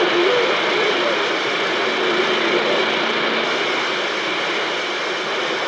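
Steady static hiss from a CB radio receiver between transmissions, with faint warbling voice fragments under the noise.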